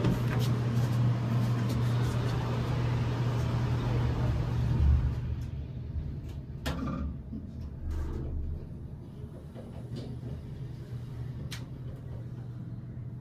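Otis Gen2 elevator's sliding doors closing after the door-close button is pressed, shutting with a low thud about five seconds in. The steady low hum and background noise drop away once they shut, and a few light clicks follow in the quieter car as it readies to go down.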